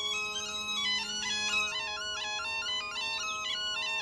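Background music: a melody stepping up and down over several steady held drone notes, in the style of pipe music.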